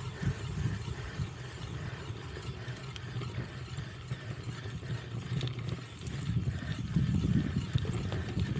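Cyclocross bike being ridden over rough ground: a low rumble of tyres and wind with mechanical rattling and faint regular ticking from the bike, getting louder about six seconds in.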